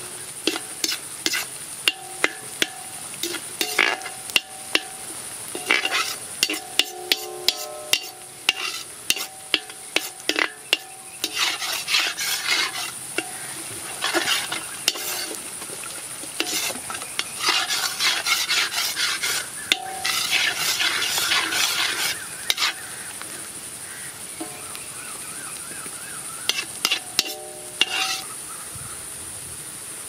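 A metal ladle scraping and knocking against an iron kadai as food is stirred and fried in oil: irregular clanks, each with a short ring from the pan, between stretches of sizzling. The stirring stops near the end, leaving a faint steady hiss.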